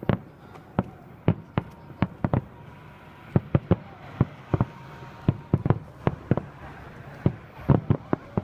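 Fireworks shells bursting in an irregular run of sharp bangs, about two or three a second, coming thicker near the end.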